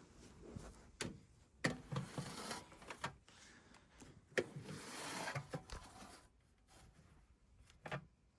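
A few sharp clicks and knocks, with two stretches of rubbing or scraping between them, about a second and a half long each; no motor is heard running.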